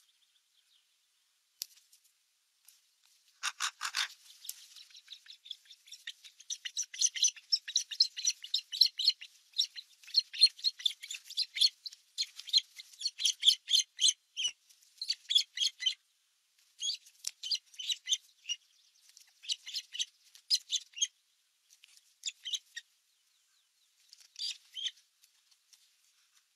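Raptor nestlings chirping in rapid series of short, high-pitched notes, coming in bursts with brief pauses. About three and a half seconds in comes a single harsher call before the chirping starts.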